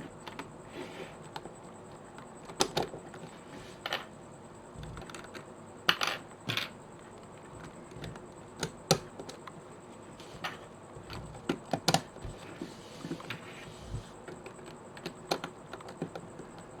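Plastic pieces of a 5x5 puzzle cube clicking and snapping as they are pushed into place and handled, in irregular sharp clicks with a few louder snaps.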